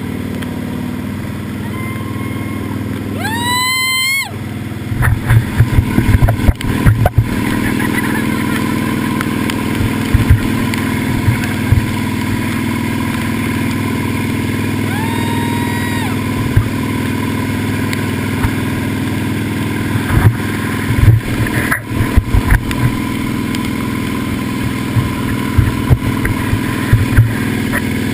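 Correct Craft Martinique ski boat's inboard engine running steadily at towing speed, over the rush of the churning wake. Irregular low thumps of wind buffet the microphone.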